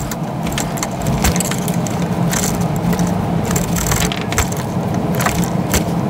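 Wire strippers working on copper switch wires close to the microphone: metallic clicks and jangling over a steady, loud noise.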